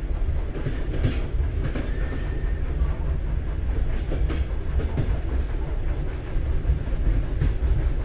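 Train-ride sound effect in a mock railway compartment: a steady low rumble of a rolling carriage with occasional faint wheel clicks.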